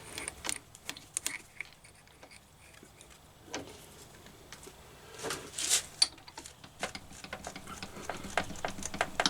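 Small metal tools and parts being handled on a workbench: scattered light clicks and taps, with a short rustle about halfway through.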